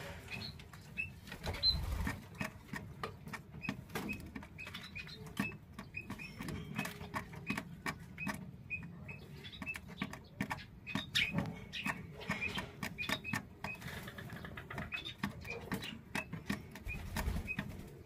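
Ringneck dove squabs begging in short high squeaks, a few a second, while being fed in the nest, with clicking and rustling from the birds moving in the straw.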